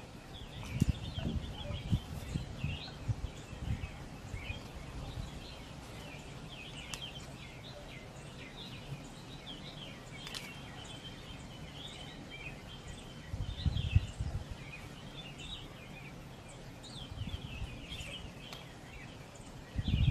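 Small birds chirping and twittering in the background, with occasional snips of scissors cutting painted paper and a few low thumps, the loudest about two-thirds of the way through.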